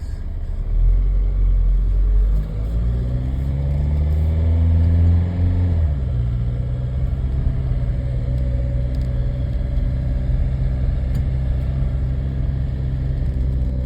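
Ford Galaxy 1.9 TDI four-cylinder diesel engine under way, revs rising for about five seconds, then dropping sharply about six seconds in and running steadily after.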